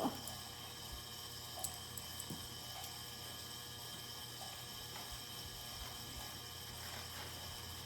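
Steady hum of a household heating and cooling fan, with a few faint clicks from paper and tools being handled.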